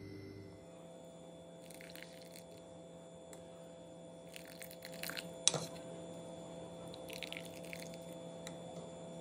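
A steel ladle stirring and scooping thin rasam in a stainless-steel pot, with a few short liquid splashes and one sharp clink of ladle on pot about five and a half seconds in. A steady low hum runs underneath.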